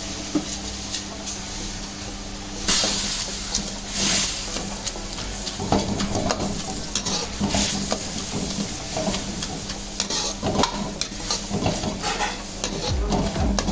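Steel ladle stirring fried noodles into simmering sauce in a wok: sizzling with two bursts of hiss a few seconds in, then repeated scrapes and clinks of the ladle against the wok, over a steady low hum.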